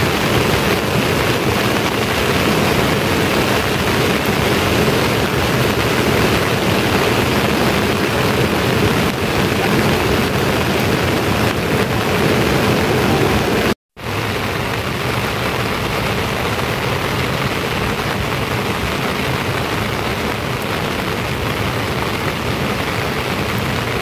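Heavy rain falling, a dense, steady hiss. It cuts out for a moment about 14 seconds in.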